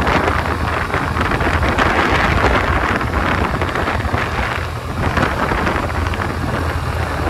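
Wind buffeting a helmet-mounted microphone while riding, a loud steady rush, with the Suzuki Avenis scooter's small single-cylinder engine rumbling low underneath.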